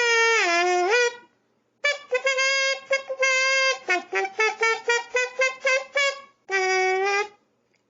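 Red Sing-A-Tina, a kazoo-type instrument, playing a short buzzy tune: a sliding phrase, then a run of short notes, and a held note near the end.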